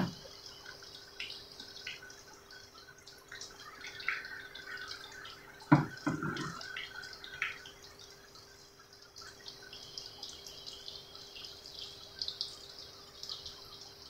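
Battered eggplant strips deep-frying in oil in a small pan: a steady crackling sizzle full of tiny pops. Two sharp knocks about six seconds in, over a faint steady hum.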